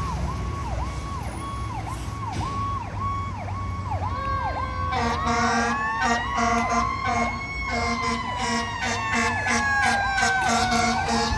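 Fire apparatus sirens: one siren on a fast yelp, about two sweeps a second. About five seconds in, a second siren joins with a slow rising and falling wail, along with repeated blasts of a low horn, and the sound grows louder.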